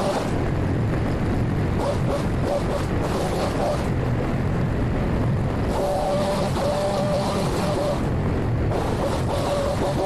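Small two-stroke engine of a gas-powered trimming tool running at high revs, its pitch easing off and coming back up several times while cutting branches.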